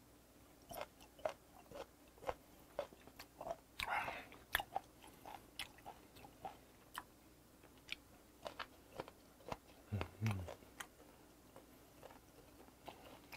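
Close chewing of a mouthful of fermented skate: soft, irregular crunches of its cartilage and wet mouth clicks. A short low hum comes from the eater about ten seconds in.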